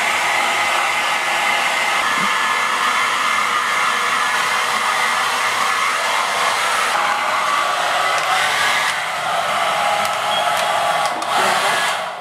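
Handheld electric hair dryer blowing steadily, used to dry a wet kitten's fur.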